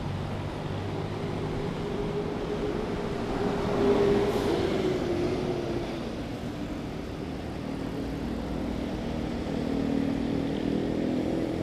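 Motor traffic on a city road, a steady wash of engines and tyre noise, with one vehicle passing close about four seconds in.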